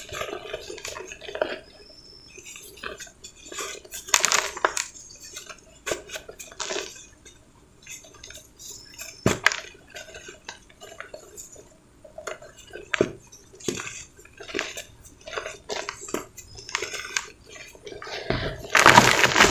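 Dry pure cement powder and hard lumps crunching and crumbling as bare hands squeeze and dig through them in a bucket: irregular gritty crunches and crackles, with a few louder crunches and a dense loud burst of crunching near the end.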